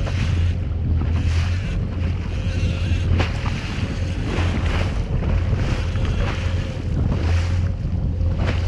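Wind buffeting the microphone and choppy sea water washing and slapping against a jet ski's hull, surging roughly once a second over a constant low rumble.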